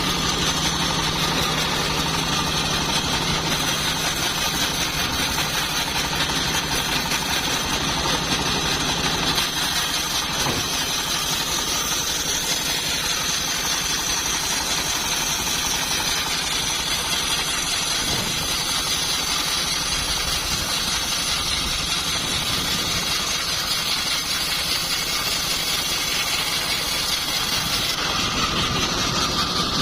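Homemade band sawmill running steadily with an engine-like drone.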